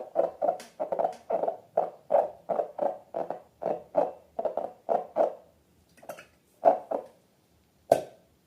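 Slime squelching in a quick run of short, wet squishes, about three a second, then a few more spaced out near the end.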